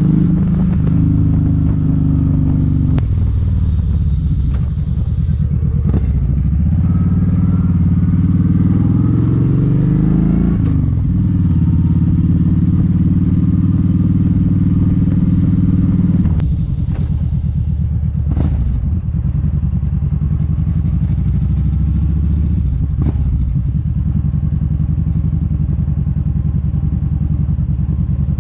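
Kawasaki Vulcan 1700 Vaquero's V-twin engine running while riding, its pitch rising under acceleration about eight to eleven seconds in, then settling to a lower, quieter note about halfway through. A few sharp clicks along the way.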